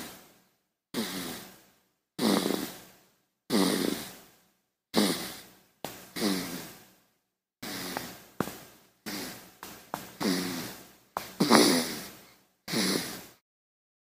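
A baby snoring in short breaths, each with a brief falling tone that fades quickly. They come roughly one a second, bunching closer together in the second half, and stop near the end.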